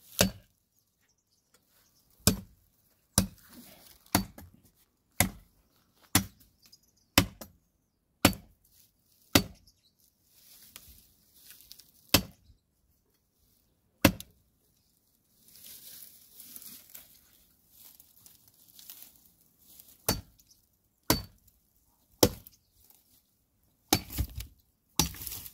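A blade chopping into the base of a charred, thorny tree trunk: sharp single strikes about one a second, a pause of several seconds with soft rustling about two-thirds of the way in, then quicker strikes near the end.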